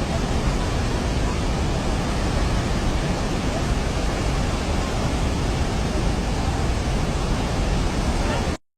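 Steady rushing of a swollen river in flood, a continuous heavy roar of water that cuts off suddenly near the end.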